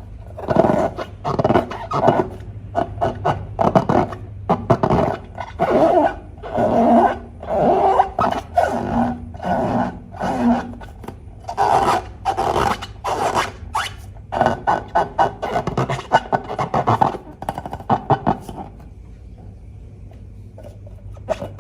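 Slime being squished and worked by hand in a rapid, irregular run of wet squelching and scraping strokes that stops near the end, over a steady low hum.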